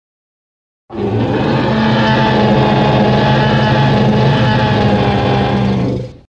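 A sound-effect clip of a steady low rumble with a droning hum, lasting about five seconds; it cuts in abruptly about a second in and stops just before the end.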